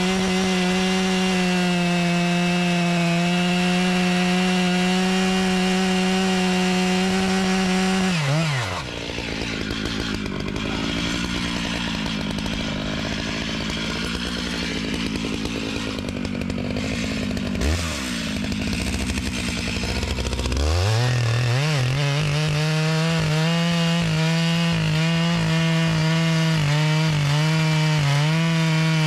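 Large two-stroke chainsaw held at full throttle, dropping to idle about eight seconds in. Around twenty seconds in it revs back up and holds high revs with a slightly lower, wavering pitch, as under load cutting wood, then drops back at the end.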